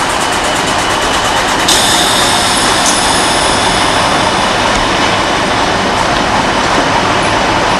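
Loud, steady machinery noise, with a high whine joining suddenly about two seconds in and fading over the next few seconds.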